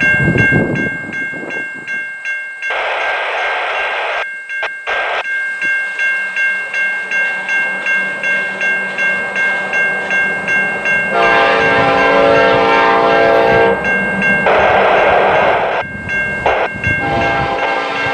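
A train horn sounds one held chord for about two and a half seconds, about eleven seconds in. Before and after it there is a steady high ringing that pulses about twice a second, broken by two bursts of rushing noise.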